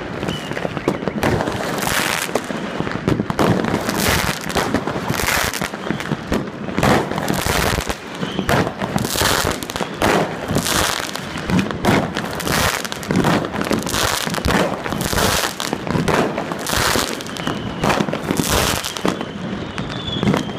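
Many fireworks and firecrackers going off at once: a dense, unbroken crackle with louder bangs about once a second.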